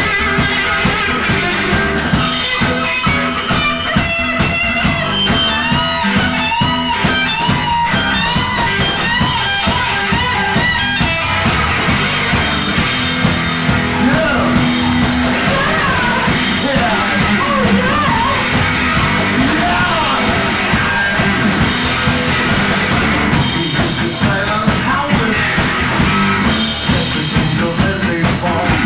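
Live rock band playing electric guitar, electric bass and drum kit together at a steady, driving pace. A bending, wavering lead melody rides over the band through roughly the first third.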